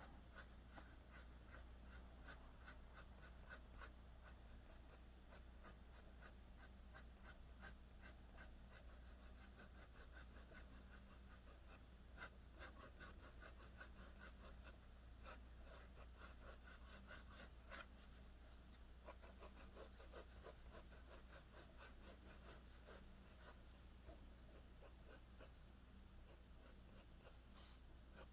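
Graphite pencil scratching on paper in runs of quick, short strokes as strands of hair are drawn in, with brief pauses between runs. Faint, over a steady low hum.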